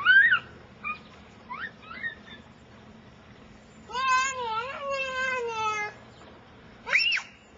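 Young children's high-pitched squeals at play: a few short rising squeals, then a drawn-out wavering cry lasting about two seconds, and one sharp rising-and-falling squeal near the end.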